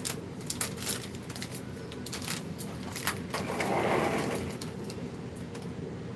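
Plastic coffee sachets crinkling and rustling as they are handled, with scattered small clicks and knocks. The rustle grows louder and denser for about a second from around three and a half seconds in, over a low steady hum.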